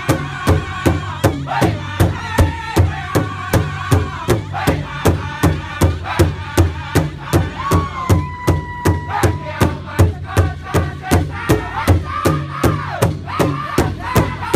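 Powwow drum group singing in unison in high, strained voices over a big powwow drum struck together with drumsticks in a steady beat of about three strikes a second.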